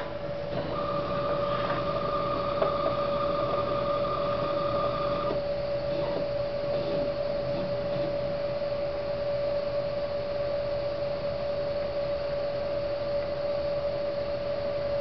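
Steady machine hum with a constant whine from a Scanivalve SPC4000 pressure calibration setup as it regulates to a low-pressure setpoint. A second, higher whine runs for about the first five seconds while the pressure settles, then stops.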